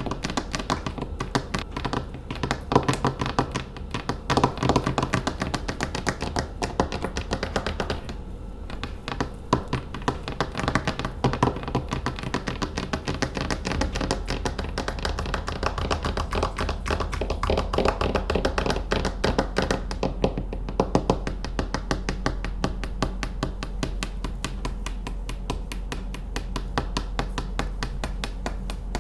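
Fast fingernail tapping, many light taps a second in a dense, continuous patter.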